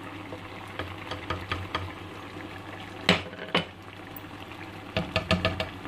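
Wooden spoon stirring ground spices into a simmering pot of mutton and cabbage curry, knocking against the non-stick pot. Two loud knocks come about three seconds in and a quick run of taps near the end.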